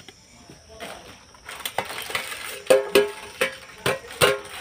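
Metal clanking of an aluminium lid and utensils against a large aluminium wok. After a quiet start there is a run of sharp clanks, each with a short ringing tone.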